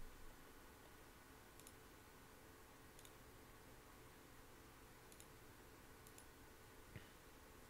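Near silence: faint room tone with about five faint, widely spaced computer mouse clicks.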